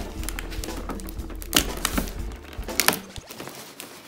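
Hands handling a cardboard collector's box with a clear plastic window: rustling and scraping with several sharp knocks and clicks.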